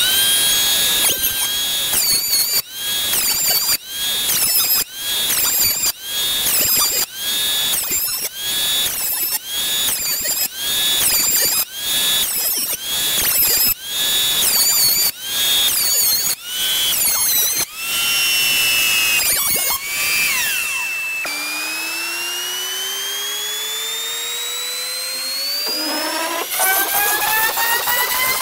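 Toolmate benchtop thickness planer whining at high pitch, dipping and recovering again and again as boards are fed through in quick cuts. After that comes a steady machine whine that slowly rises in pitch. Near the end a CNC-mounted trim router is cutting wood.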